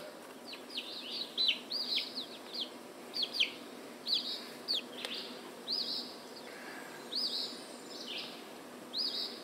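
Young chickens peeping: a string of high, downward-sliding peeps, about two a second with short irregular gaps.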